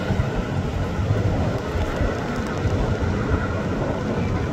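ATR 72 turboprop airliner climbing out just after takeoff, its two engines and propellers at takeoff power making a steady low drone.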